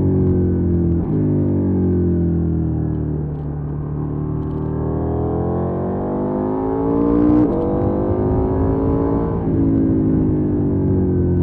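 2020 KTM 790 Duke's parallel-twin engine heard from onboard. Its note falls steadily as the bike slows for a bend, then climbs under hard acceleration, with a sharp break in the note from a gear shift about two-thirds of the way in and another shortly after.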